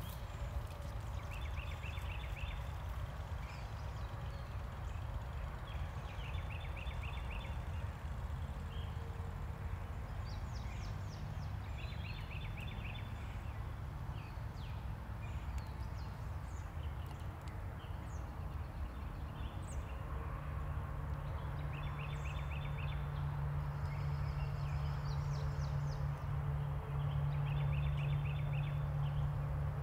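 An animal's short pulsed trill, repeated about five times some five seconds apart, over a steady low rumble. A low hum joins the rumble about two-thirds of the way through.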